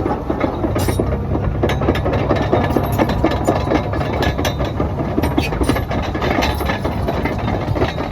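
John Deere 950J bulldozer's Liebherr diesel engine running with a steady low hum, heavier from about a second in until near the end, over constant metallic clicking and clanking from the machine.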